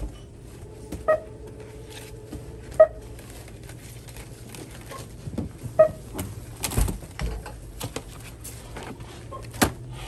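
Checkout barcode scanner giving three short beeps, each a successful item scan, with a few sharp knocks and clatter of goods being handled between them over a steady low hum.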